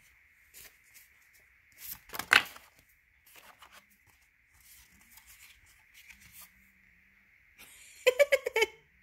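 Cards being handled by hand: a loud rustle as a card is slid from the deck about two seconds in, softer rustling through the middle, and a quick rattle of card clicks near the end.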